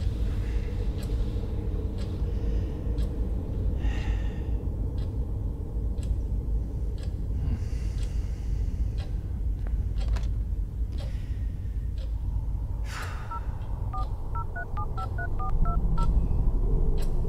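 A telephone keypad dialing about ten digits in quick touch-tones, each a short paired beep, a little over two-thirds of the way in, followed near the end by a low steady tone on the line. Under it runs a steady low rumble with faint ticks about once a second.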